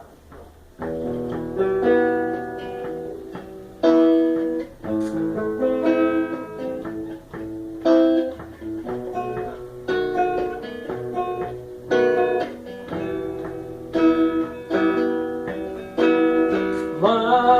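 Guitar playing a song's instrumental introduction: strummed chords land about every two seconds, with picked notes between them.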